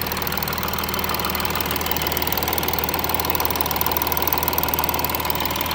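Audi A6 3.0 TDI 272 PS V6 diesel engine running steadily, fully warmed up. The owner suspects camshaft and timing chain tensioner damage.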